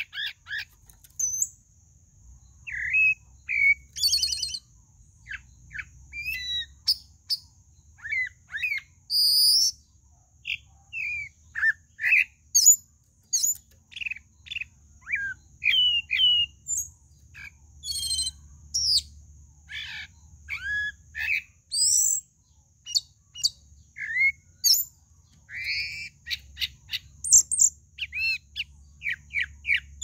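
Pale-breasted thrush (sabiá-barranco, Turdus leucomelas) singing: short, varied whistled phrases that rise and fall in pitch, following one another with brief pauses.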